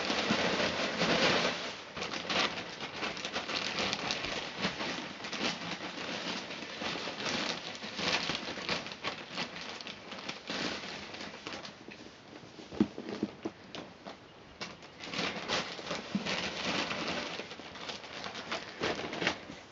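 Wood-shaving bedding being poured into a clear plastic storage bin: a dense rustle of many small ticks, loudest in the first couple of seconds, then lighter and uneven as the shavings settle.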